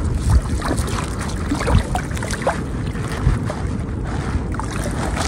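Water sloshing with scattered small splashes and knocks, over wind rumbling on the microphone.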